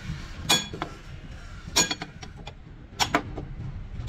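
Heavy hammer striking a long steel chisel held against a truck's steel chassis rail: sharp ringing metal clangs about every second and a quarter, three blows, the last a quick double.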